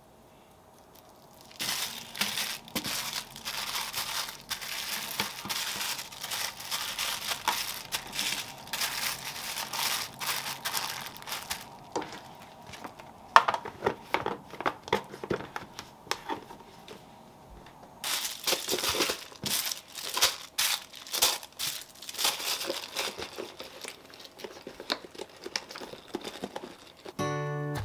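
Dense crinkling and crumpling of a wrapping-like material in two long spells, with scattered clicks and taps between them and one sharp click about thirteen seconds in.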